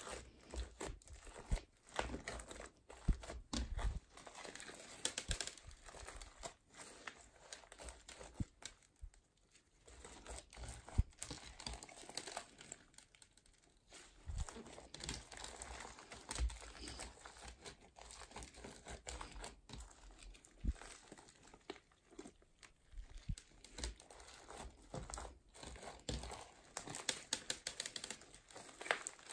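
Crunchy foam-bead slime squeezed, kneaded and stretched by hand: dense, irregular crackling and popping as the beads are pressed, in uneven bursts with brief lulls.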